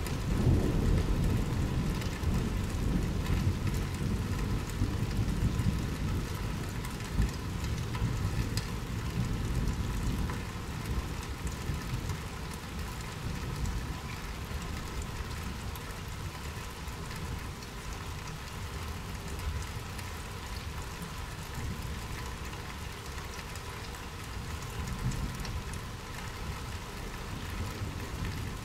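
Steady rain falling during a thunderstorm. A low rolling rumble of thunder is loudest in the first ten seconds or so, then dies away under the rain.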